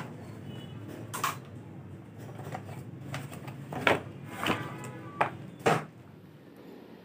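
Cardboard box and plastic packaging being handled: a few short rustles and knocks, most of them in the second half.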